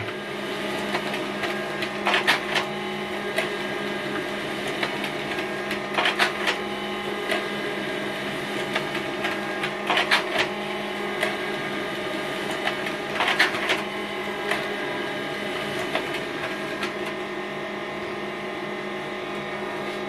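HP LaserJet Pro M15W laser printer running a print job: a steady mechanical hum with several whining tones, broken four times by a short louder rasp as pages feed through and come out into the output tray.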